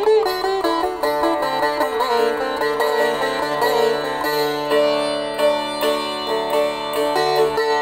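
Instrumental music: a plucked string melody with notes that bend in pitch, over a steady low drone.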